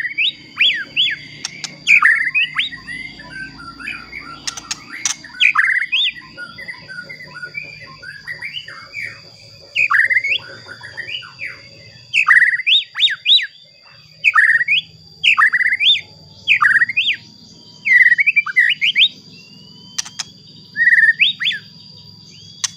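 White-rumped shama (murai batu) singing: short, sharp whistled phrases of quick sweeping notes, repeated about once a second with brief pauses, over a faint steady high-pitched tone.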